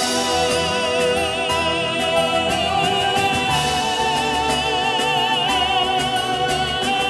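A man singing a Vietnamese religious song into a microphone, holding sustained notes with vibrato over instrumental accompaniment.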